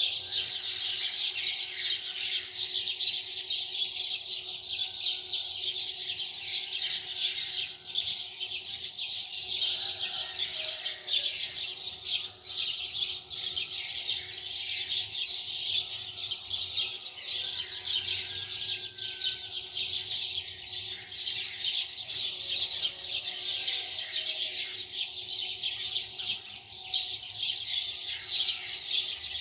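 Continuous dense chorus of many small birds chirping and twittering, with a faint steady hum underneath.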